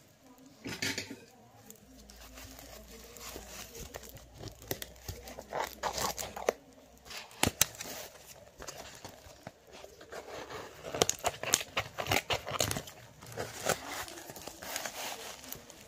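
Shredded paper packing filler rustling and crinkling in a cardboard box as a hand digs through it and works a cardboard tube loose. Irregular rustles and sharp crackles, busier in the second half.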